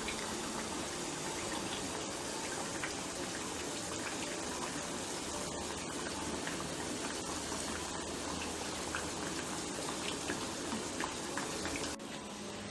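Ghee sizzling and bubbling steadily as balushahi dough rounds deep-fry on a low flame, with many fine crackles. The sound drops near the end.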